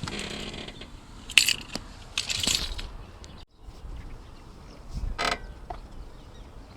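Car suspension creaking as it moves: a handful of separate creaks and squeaks, one of them a drawn-out pitched creak, from a broken sway bar link.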